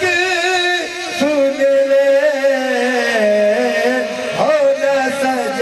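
A man singing a Punjabi qasida in long, wavering melismatic notes, settling into a steady held note about three seconds in.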